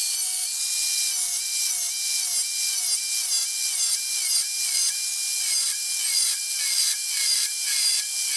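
Ryobi cordless angle grinder with a thin slitting disc running at high speed and cutting slits into the corner of a steel bar. Its whine dips in pitch about twice a second as the disc is pressed into the steel.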